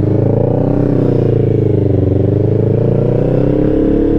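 Motorcycle engine running while riding, its pitch dipping slightly about halfway through and rising again near the end.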